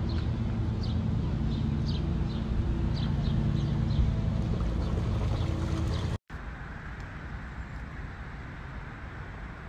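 Steady low motor hum with short high chirps over it. It cuts off abruptly about six seconds in, giving way to quieter, even outdoor hiss.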